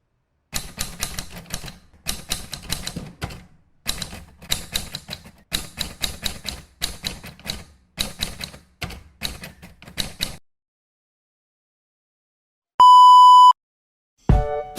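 Typewriter keys clacking in quick runs of clicks with short pauses between them for about ten seconds. After a silence comes a single steady electronic beep lasting under a second, and music starts just before the end.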